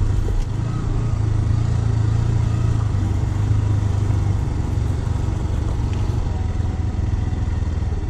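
Motorcycle engine running steadily at a low, even pitch while the bike rolls slowly along a rough dirt road, heard from the rider's own bike.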